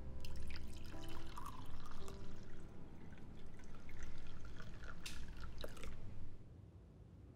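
Coffee being poured from a glass carafe into a cup: a splashing trickle with a few small clicks that gets louder near the end and stops about six seconds in. Soft music fades out about a second in.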